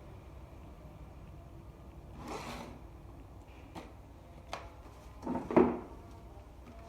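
Small objects being handled on a work surface: a short rub about two seconds in, a few light clicks, and a louder scrape and knock a little past the middle.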